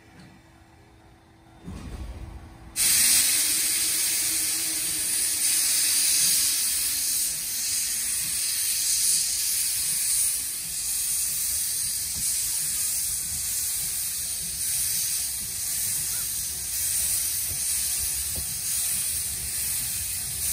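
Steam locomotive blowing off steam from its cylinder drain cocks in a loud, steady hiss as the train starts to pull away, with a low rumble of the train underneath. A low thump comes about two seconds in, and the hiss starts suddenly about three seconds in.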